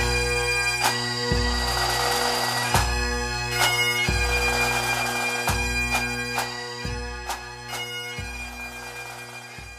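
Bagpipes playing a melody over their steady drone, with repeated low notes underneath, fading out through the second half as the song ends.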